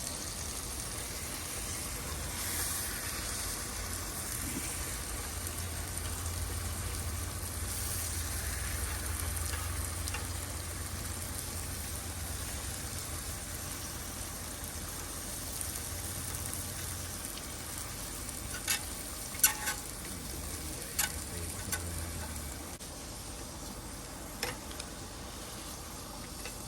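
Food sizzling steadily in a pan on a camp stove, with a few sharp clicks about two-thirds of the way through.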